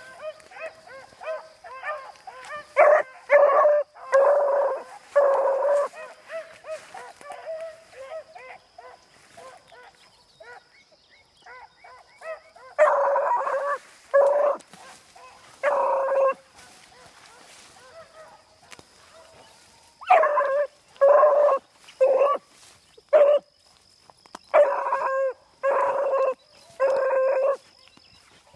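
Beagle pup baying on a rabbit's trail: loud runs of short, pitched bays, several in a row, with quieter, choppier yelps between the runs. The voice is the hound giving tongue as she trails the rabbit's scent.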